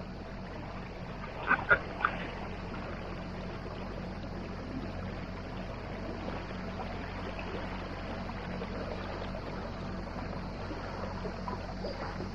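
A MacGregor 26X sailboat's outboard motor running with a steady low hum. Three short, loud calls come close together about a second and a half in.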